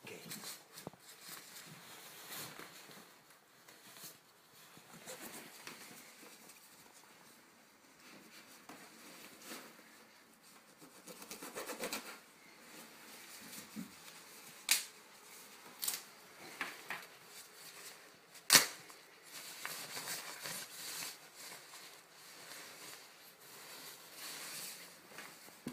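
Hands rummaging through a pile of clothes and a synthetic jacket: fabric rustling and crumpling, broken by a few sharp clicks, the loudest about three-quarters of the way through.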